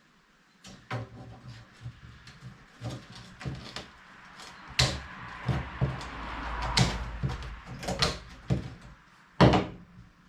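Metal knocks, clanks and rattles of an old welded wire-mesh spark guard being wrenched and pried at as it is worked loose from its frame, with a rough, noisy stretch about halfway through.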